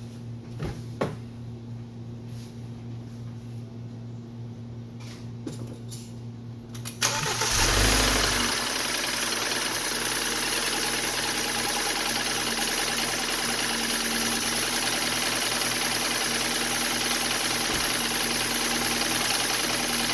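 BMW N20 2.0-litre turbocharged four-cylinder engine started about seven seconds in: a brief crank and a flare as it catches, then a steady idle. It idles evenly with no misfire now that the loose ignition coil on cylinder 3 is refitted.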